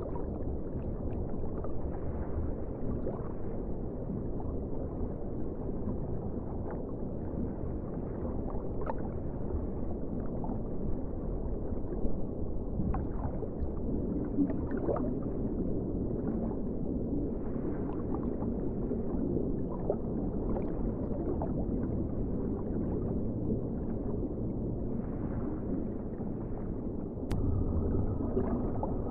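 Underwater ocean ambience: a steady, muffled low rumble with gurgling and scattered faint clicks.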